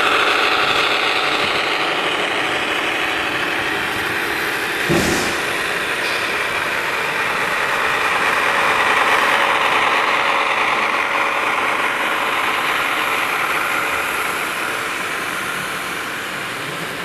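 A long consist of HO scale model diesel locomotives running past close by: a steady mechanical hum that swells and eases as the units go by, with one sharp click about five seconds in.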